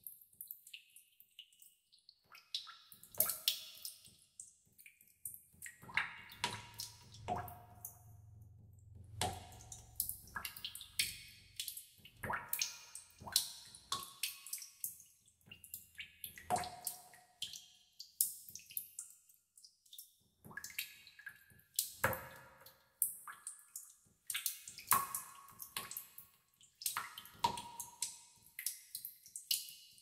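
Water drops falling into a tub of water: irregular plinks, a few a second, each with a short ringing tone at a different pitch.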